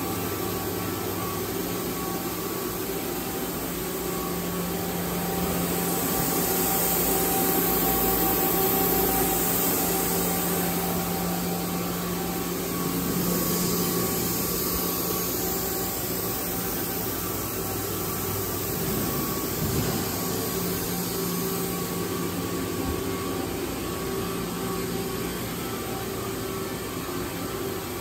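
Steady hum of factory machinery and fans: a low drone with a few steady tones under a hiss of moving air. The hiss swells briefly twice.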